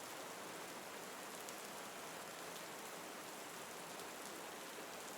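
Steady rain falling, an even hiss with faint drops pattering on leaves.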